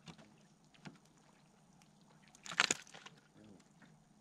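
Handling noise from a caught bass being held and unhooked: a short crackling, rattling burst about two and a half seconds in, with a few small clicks around it.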